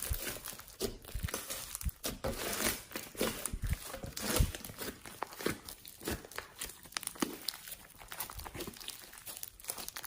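Slime being kneaded and stretched by hand: a dense, irregular run of small sticky pops and clicks.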